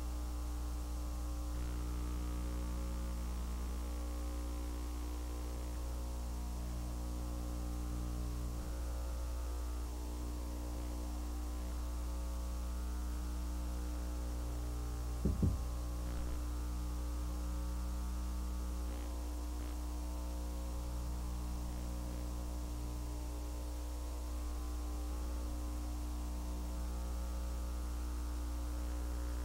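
Steady electrical mains hum with its overtones from a VHS tape whose audio track is blank, with a brief pop about halfway through.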